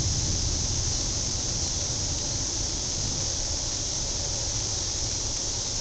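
Gusty storm wind buffeting the microphone, with a steady high hiss over it.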